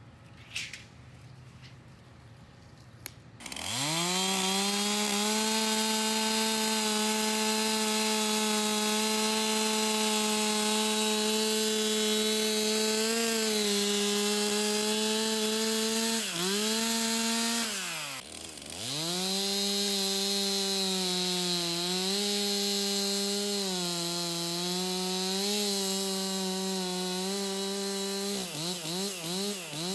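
Stihl MS 362 C two-stroke chainsaw starting about three seconds in, running at full throttle and cutting through a wooden power pole, its pitch wavering as the chain loads up in the cut. The revs drop sharply twice around the middle, and near the end it is revved in quick blips and let off.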